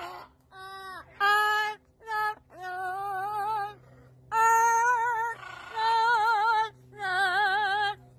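An Amazon parrot singing in a human, woman-like voice: a run of short sung notes and held phrases with brief pauses between, the later ones with a strong, wavering vibrato like an opera singer's.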